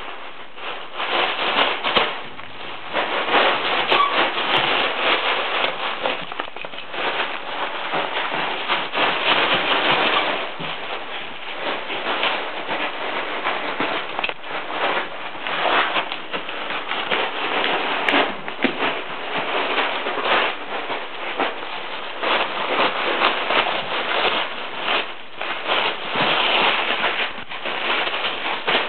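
Wrapping paper being torn and crumpled by two wheaten terriers ripping open presents: a dense, continuous crackle of paper, louder in spells.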